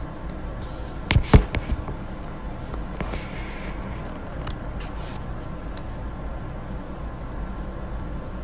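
Steady low background hum and hiss, with a quick cluster of sharp knocks and clicks about a second in and a few faint clicks after.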